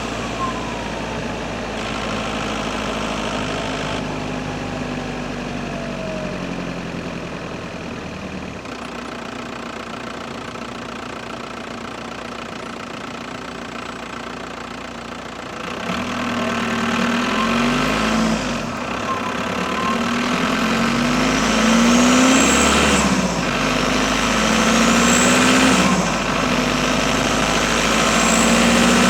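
Audi A6 4F's 2.0 TDI PD four-cylinder turbo diesel idling, with a whistle falling in pitch in the first few seconds as the turbo winds down. From about halfway the engine is revved up and down several times, louder, each rev bringing a high turbo whistle that climbs in pitch.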